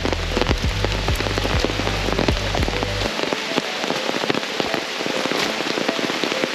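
Steady rain falling, with many individual drops ticking close by over an even hiss. A low rumble underneath cuts off suddenly about three seconds in.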